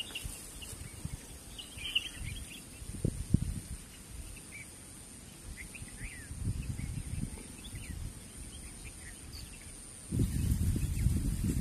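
Small birds giving short scattered chirps over wind buffeting the microphone in a grassy meadow. Two soft low knocks come about three seconds in, and the wind rumble grows much louder near the end.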